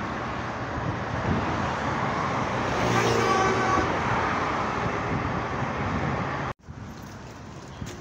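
Steady outdoor rushing noise with an irregular low rumble, and a brief pitched tone about three seconds in. It cuts off abruptly about six and a half seconds in, and a quieter background follows.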